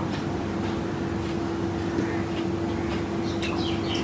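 Steady machine hum with one constant tone over a low rumble, with a few faint high bird chirps near the end.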